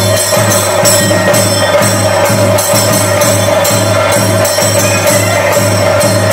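Theyyam ritual music: deep drum beats about twice a second and clashing small cymbals, over a steady, held high note.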